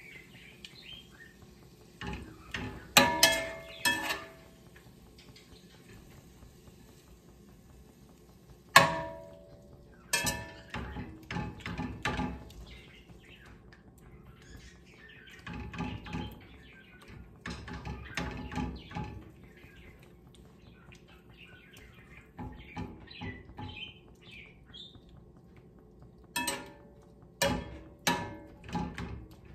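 Metal spatula clanking and scraping against a stainless steel frying pan as pieces of beef are stirred and turned. The sharp ringing knocks come in clusters, with stretches of scraping between them.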